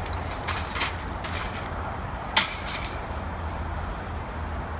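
Wire shopping trolley rattling and clanking as it is handled, with a few light clicks in the first second and one sharp clack about halfway through, over a steady low rumble.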